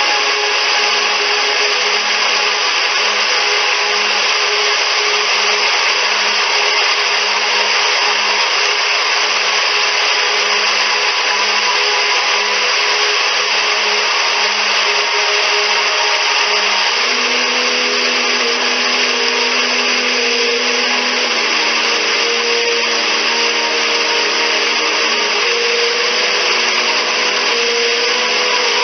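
Steady, unbroken rush of a waterfall, with soft background music of held, slowly changing notes underneath.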